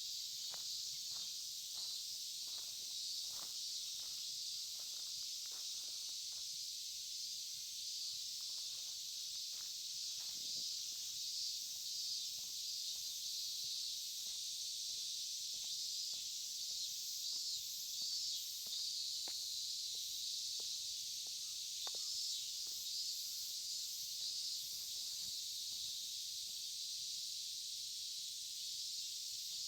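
Steady high-pitched chorus of insects, with footsteps walking at an even pace for the first several seconds and then only now and then.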